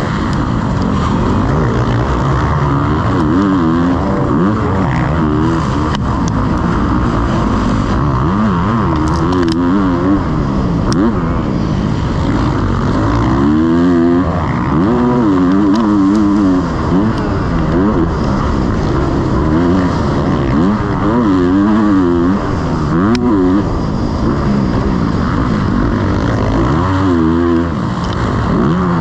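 Motocross bike engine revving hard, its pitch climbing and dropping off again and again, over a steady rush of noise.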